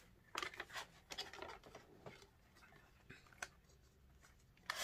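Cardboard product box being handled and worked open: a few short scraping and rustling sounds, with a louder one near the end.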